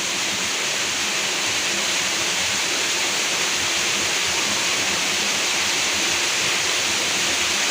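Steady rush of flowing river water: an even, unbroken hiss.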